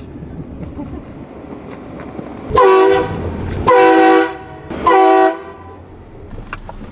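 Car-mounted replica train air horn, fed by a 200 psi compressor, sounded in three loud blasts of about half a second each, a second apart, heard from inside the car. Steady car road noise fills the gaps.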